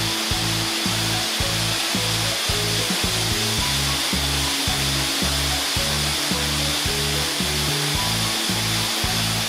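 Background music with a steady beat and a bass line changing notes in time, over the steady rush of a small waterfall.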